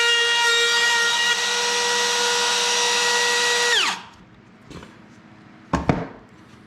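Small router with a mini roundover bit running at a steady high whine, then switched off about four seconds in and spinning down with falling pitch. A couple of sharp knocks follow near the end.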